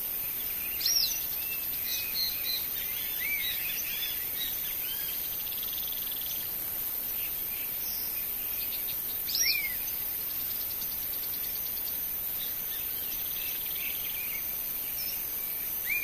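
Wild marsh ambience: scattered short bird chirps and calls with brief insect trills over a steady high hiss. The loudest are sharp arched chirps about a second in, about halfway through, and at the very end.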